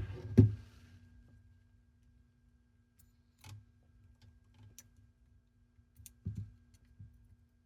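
Clicks and knocks of handling a cassette deck's tape transport mechanism, two sharp knocks at the start and a few lighter clicks later, over a faint steady hum.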